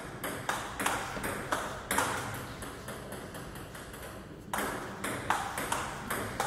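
Table tennis rally: the celluloid/plastic ball clicking off the paddles and bouncing on the table in a quick back-and-forth, with a lull of about two seconds in the middle before the clicks resume.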